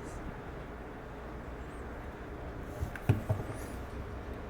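A low, steady background hum, with a few short knocks about three seconds in.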